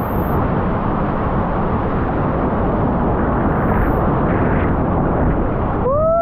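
Steady rushing of creek whitewater. A person's voice rises and falls briefly near the end.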